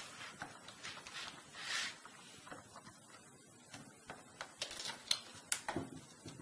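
Faint scattered small clicks and a brief scrape as a laptop keyboard's ribbon cable is worked free of its connector with a pointed tool.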